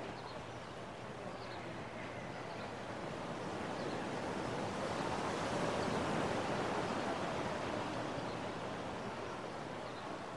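Ocean surf: a wave breaking and washing up the beach, swelling to a peak about halfway through and then fading back.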